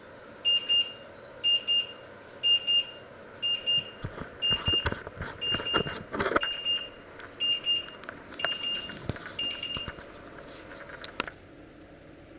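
Electric hob's timer alarm going off: short, high beeps in groups, about one group a second, stopping about ten seconds in. A few knocks and clatters come in the middle.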